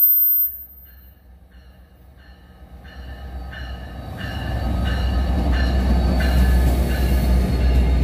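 Commuter train of locomotive-hauled coaches approaching and running past: a low rumble growing steadily louder, with wheels clicking over rail joints about every half second and a faint high squeal from the wheels. A louder sound cuts off sharply about half a second in.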